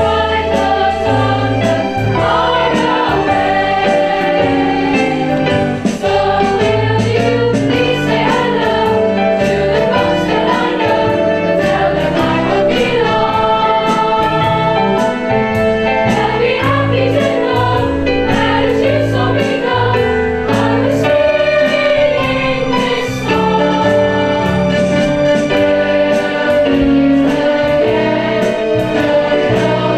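A mixed choir of children and adults singing together through a PA system, over an instrumental backing with a steady bass line.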